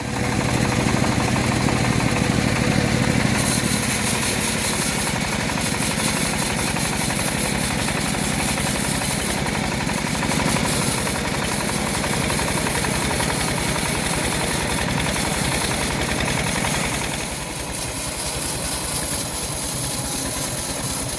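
Home-built bandsaw sawmill running steadily on its engine while sawing a teak log. A higher hiss joins a few seconds in and drops away a few seconds before the end.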